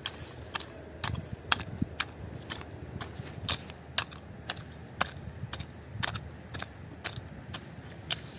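Hand hoe chopping into tilled soil, a short sharp strike about twice a second in a steady rhythm.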